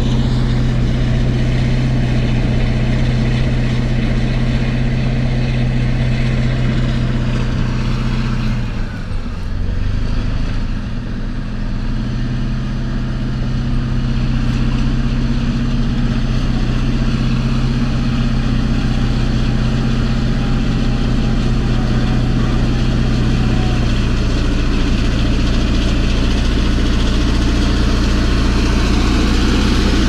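Caterpillar D11 bulldozer's diesel engine running hard while it works dirt in the pit. The engine note drops briefly about nine seconds in, then picks back up.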